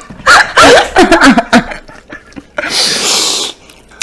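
People laughing hard into a close microphone, loud high-pitched squeals of laughter for about a second and a half. About two and a half seconds in comes a second-long breathy, hissing burst of air.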